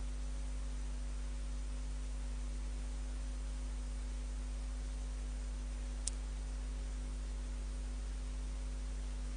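Cassette tape playback running on with no music: a steady mains hum under an even tape hiss, with one faint click about six seconds in.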